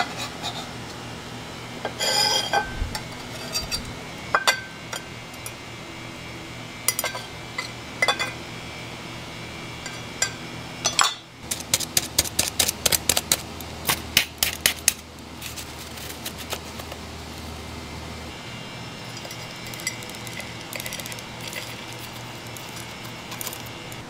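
Clinks and knocks of kitchen utensils: scattered taps in the first few seconds, then a quick run of clinks around the middle as a metal spoon stirs and scrapes coarse salt with chili flakes in a bowl. A steady low hum runs underneath.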